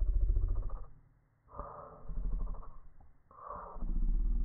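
Hilti cordless half-inch impact wrench, set to speed 2, run in three bursts with the trigger pulled and let go: one ending about a second in, then after a short pause one more and a longer last one.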